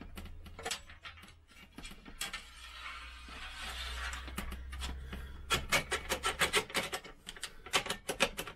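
Cover panel of a Tevo Nereus 3D printer's base sliding along its frame with a scraping rub for a few seconds, then a quick run of clicks and taps, twice, as it is pushed home.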